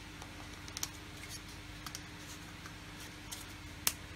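Light clicks and taps of hard plastic model-kit parts being handled, as an Airfix Hellcat wing spar is pressed into its groove in the wing, with a sharper click just before the end as it seats; a faint steady hum underneath.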